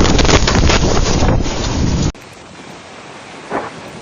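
Strong wind buffeting the microphone in a loud, gusting rush, cut off abruptly about two seconds in. A quieter, steady rushing noise follows.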